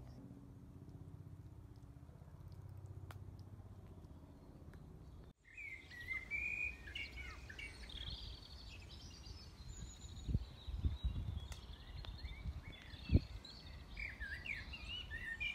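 Songbirds chirping and singing, many short quick calls, after a cut about five seconds in; before it only a faint low rumble. A few low thumps stand out near the middle of the bird chorus.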